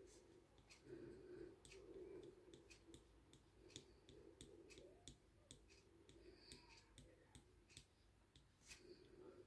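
Faint, irregular clicking and light scratching, about two or three ticks a second, from the hot tip of a pyrography wood-burning pen being touched down and drawn across wood in short strokes.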